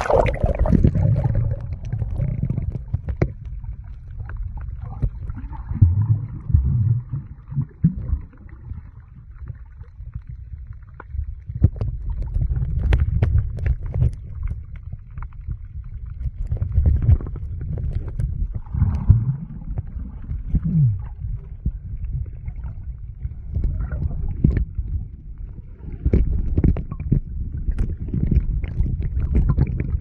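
Muffled underwater sound picked up by a phone's microphone held under the sea: a low, uneven rumble of moving water with scattered clicks and knocks.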